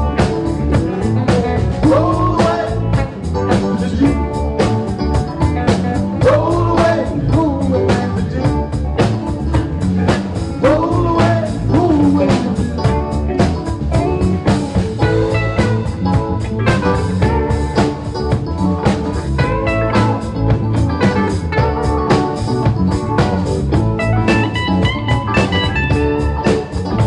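Live rock band playing: electric guitars, bass, keyboard and drum kit, with a steady drum beat and gliding melodic lines over the top.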